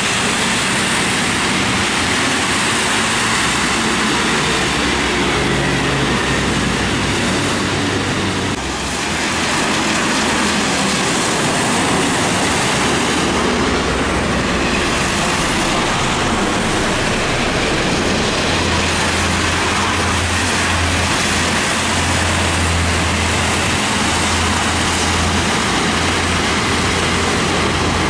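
Heavy diesel trucks passing on a rain-soaked road: a steady hiss of tyres throwing up water, with the low drone of truck engines that grows louder in the second half.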